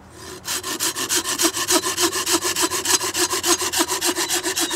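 Silky pruning saw cutting through a sassafras stick in quick, even back-and-forth strokes, starting about half a second in.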